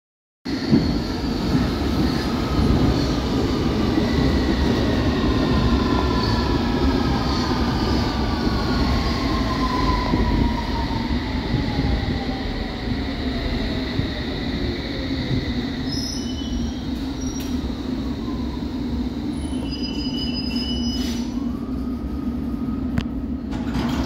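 London Underground S Stock (Bombardier Movia) train pulling in, its traction motor whine gliding steadily down in pitch as it slows, over a loud, steady rumble from the train. In the last third come a few short high tones.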